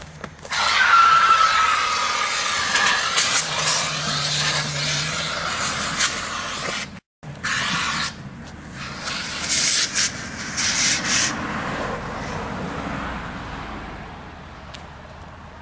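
Handheld fire extinguisher discharging onto a burning pickup truck's front end: a long, loud hiss, then a few short spurts between about nine and eleven seconds, fading out near the end.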